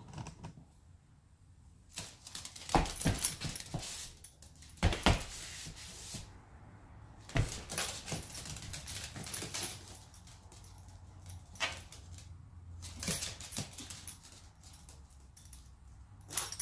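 A small Yorkie-Pomeranian's claws clicking and skittering on a hard floor as she scampers about in play, with footsteps on the floor, coming in several bursts of quick clicks and knocks.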